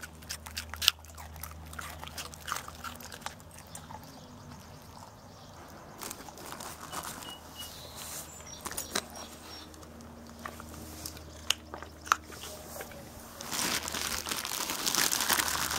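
Dogs crunching and chewing raw carrots: sharp, irregular crunches, loudest and most frequent in the first second. A stretch of rustling near the end.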